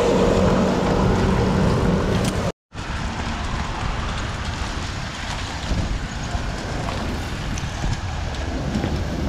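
Wind rushing over the microphone during a bicycle ride along a city street, with road traffic behind it. About two and a half seconds in the sound cuts out abruptly for a moment, and a louder stretch with a low steady hum comes before the gap.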